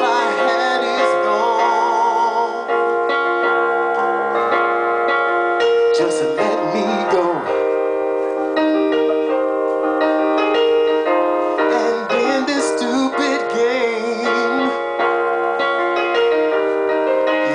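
Electronic keyboard played with a piano sound, chords and held notes, accompanying a man singing. There is vibrato on a held note near the start and gliding sung phrases about six seconds in and again from about twelve seconds.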